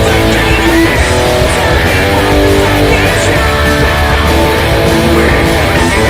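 Squier Classic Vibe Telecaster electric guitar playing a rock part, loud and continuous, with low-end energy under it throughout.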